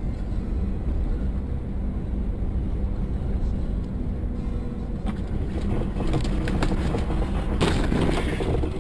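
A car's engine and tyres running on a snowy road, heard inside the cabin through a dash cam's microphone. About five seconds in, knocks and thuds start, with a loud burst of noise near the end as the car slides off the road into the snowbank.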